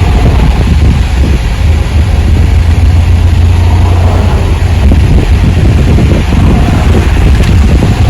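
Strong hurricane wind buffeting the phone's microphone: a loud, steady low rumble with a rushing hiss over it.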